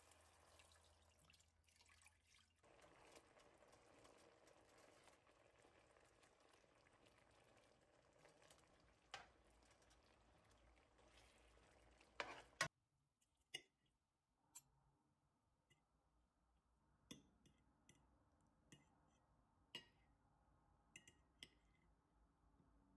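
Faint liquid sounds of cream being poured into a simmering sauce in a frying pan. About halfway through this gives way to near silence with a handful of faint, separate clicks.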